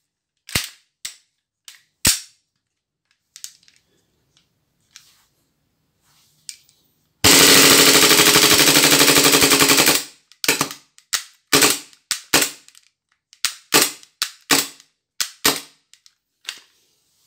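KJW KP-18 gas-blowback airsoft pistol firing: two single shots, then a rapid full-auto burst of about three seconds, then a string of single shots. Near the end the gas is running low and the slide no longer cycles fully.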